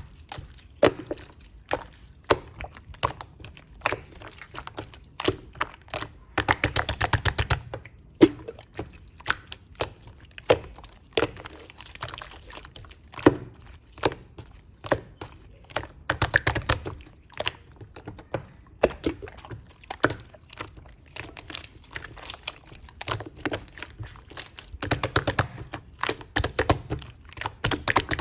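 White slime being squished and poked by hand, giving a string of wet clicks and pops. There are denser runs of crackling air-bubble pops about a quarter of the way in, around the middle, and near the end.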